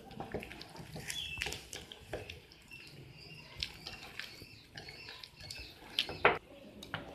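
Spoon stirring a thick semolina-and-flour batter in a glass bowl: irregular short wet stirring sounds with light clicks of the spoon against the glass, and two sharper knocks about six seconds in.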